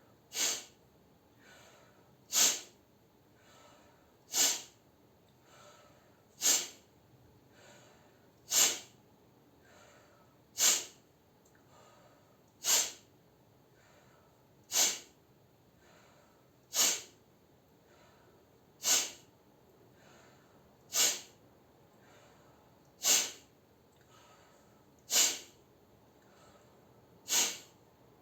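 A person doing a sneeze-breathing nasal-clearing exercise: a sharp, forceful exhale through the nose like a held-back sneeze, repeated evenly about every two seconds, fourteen times, with a faint inhale through the mouth between each.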